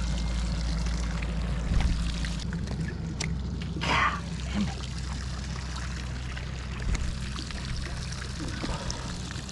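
Water pouring and trickling over a steady low hum, with a brief louder splash-like burst about four seconds in.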